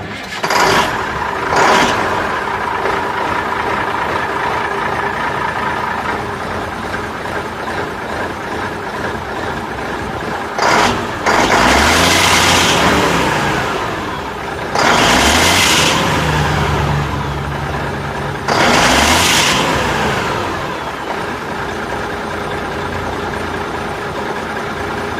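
Mack R model semi truck's 285 diesel engine starting up and settling into a steady idle, then revved up three times, each rev lasting a second or two before dropping back to idle.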